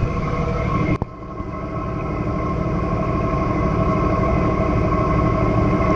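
A boat's engine running steadily, with a steady hum over a low rumble. The sound drops out sharply about a second in and swells back over the next second or two.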